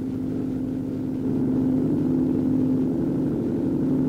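Landing craft engines running under way: a steady low drone that gets a little louder about a second in.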